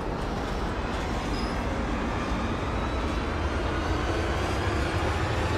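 Electric opener raising a sectional garage door: a steady rumble with a faint rising whine, growing gradually louder.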